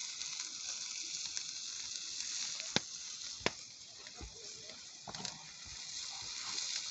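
Burger patties sizzling in a frying pan over a wood fire: a steady frying hiss, with two sharp pops near the middle.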